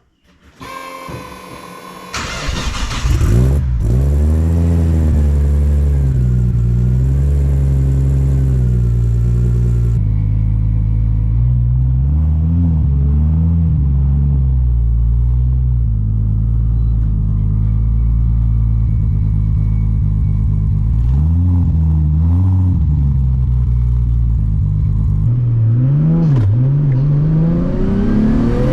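Nissan RB25DET turbocharged straight-six cranks over and fires about two seconds in. It then idles, with several short blips of the throttle, and revs climb steeply near the end.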